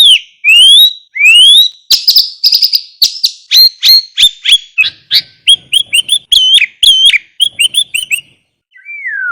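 Sooty-headed bulbul (kutilang) singing a fast, unbroken string of chirps and rising whistled notes. It pauses briefly near the end, then gives one falling note.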